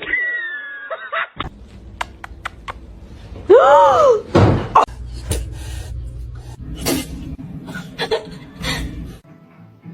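A cat meows once, a loud call that rises and falls in pitch, about three and a half seconds in, amid scattered knocks and clicks.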